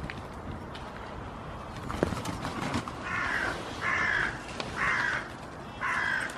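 A bird calling four times with harsh, caw-like calls, each about half a second long and roughly a second apart, starting about halfway through. A single sharp knock comes just before the calls.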